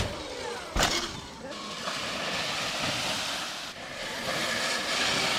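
Oset 24R electric dirt bike riding on dirt, its tyres making a steady noise, with a sharp knock about a second in.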